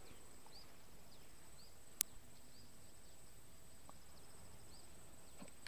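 Quiet outdoor ambience with a run of faint short high chirps from a small creature, about two a second. One sharp click comes about two seconds in.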